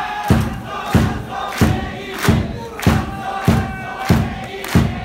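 Meiji University cheer-squad alumni singing a cheer song loudly in unison, a group of men's voices, over a heavy beat struck about one and a half times a second.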